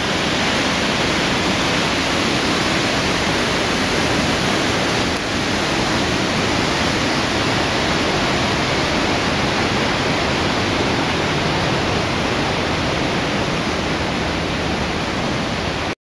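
Steady, loud rushing noise with no distinct events, starting abruptly and cutting off suddenly near the end.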